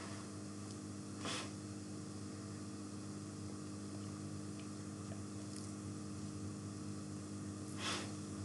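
Steady low electrical mains hum with faint hiss in the recording, broken twice by a brief soft hiss, about a second in and near the end.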